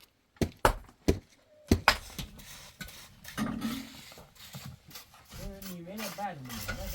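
A series of sharp knocks, four in the first two seconds, followed by a few seconds of clattering, with a voice near the end.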